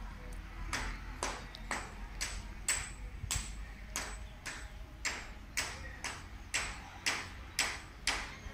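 Footsteps walking on a hard path, about two steps a second and evenly paced, starting about a second in.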